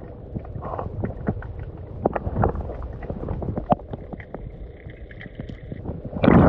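Shallow river water sloshing and splashing around a person wading, with a low rumble of wind on the microphone and many small splashes. A louder burst of splashing comes near the end.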